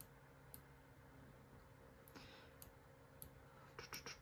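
Faint computer mouse clicks over near-silent room tone: a handful of single clicks spread out, then a quick cluster of several near the end.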